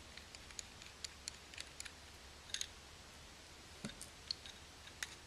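Faint, irregular small clicks of a precision screwdriver turning the two tiny bottom screws out of an iPhone 4.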